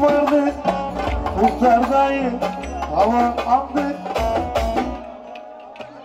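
Amplified Ankara oyun havası folk dance music from a live band: a winding melody over a deep bass and a drum beat. About five seconds in the bass and drum drop out and the music thins.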